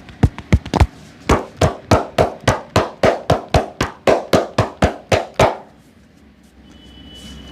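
Rhythmic hand strikes of a percussive massage, about four a second. For the first second they are deep thumps, then they turn to hollower slaps, and they stop about five and a half seconds in.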